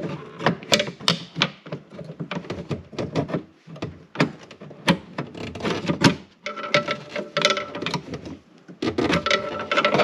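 Metal door lock assembly of a 1987 Porsche 944 clicking and clattering against the door's sheet-metal inner panel as it is worked out through the access hole: a busy run of irregular clicks and knocks.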